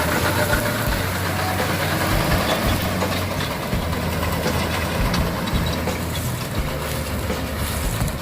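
Tractor engine running steadily with a low hum and mechanical rattling, typical of a tractor driving a New Holland Roll-Belt 180 round baler.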